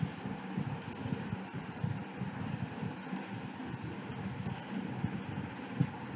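Steady low background hum with a few short, sharp clicks of a computer mouse and keyboard, some in quick pairs, as pin numbers are entered.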